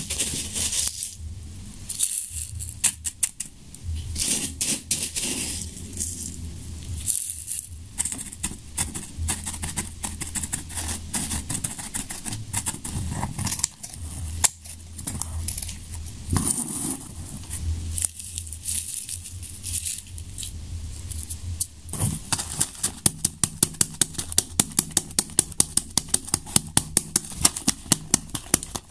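Paper and tissue rustling, with light clicks and scraping, as hands press tissue paper over the black stars in paper firework-shell hemispheres and work them with a knife blade. About two-thirds of the way through, an even run of sharp clicks begins, roughly three a second.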